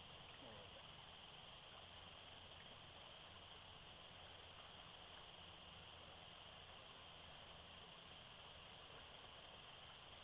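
Steady, shrill insect chorus, one strong high-pitched drone with fainter bands above and below it, holding without a break.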